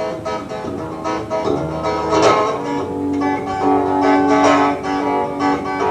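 A guitar playing chords in a short instrumental passage of a song, with no singing.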